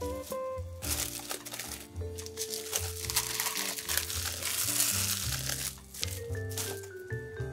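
Plastic cling wrap crinkling for about five seconds as it is peeled off a round of freshly pounded mochi, over background music.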